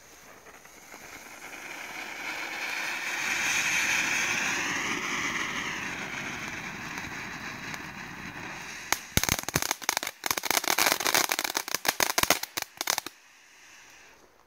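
Firework fountain spraying sparks with a rushing hiss that swells and wavers in pitch. About nine seconds in, a dense run of sharp crackling pops follows for some four seconds, then it dies down to a faint hiss.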